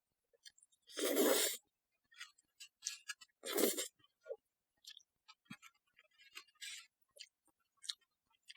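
Close-miked eating of black bean noodles (jjajangmyeon): two short slurps, about a second in and again between three and four seconds in, with small wet chewing clicks between and after them.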